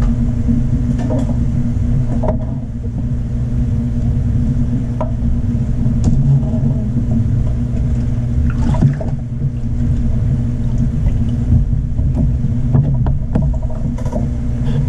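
Steady low underwater rumble with a constant hum inside a large 1800-gallon aquarium, heard through a submerged camera, with scattered clicks and knocks.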